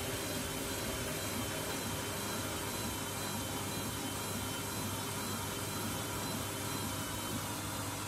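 Candy front-loading washing machine spinning: a steady rushing whir with a faint high motor whine held over it.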